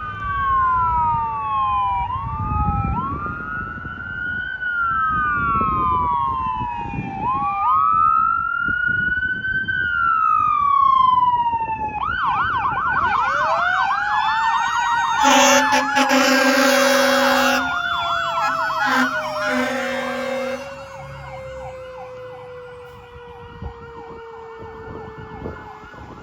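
Fire engine responding with its siren on: a slow rising-and-falling wail that switches about halfway through to a fast yelp, with a lower siren tone that climbs and then slowly winds down. Two air horn blasts sound over the siren, the first and longer one a few seconds after the switch. Under the wail there is engine and road rumble, and everything fades near the end as the truck moves away.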